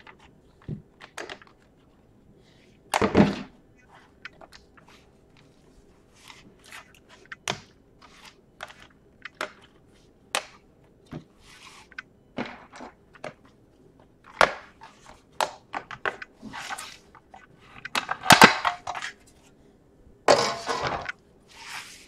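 Bottom cover of a Samsung 900X laptop being pried loose around its edges and lifted off: a long run of short, sharp clicks and snaps, with louder cracks about three seconds in and twice near the end.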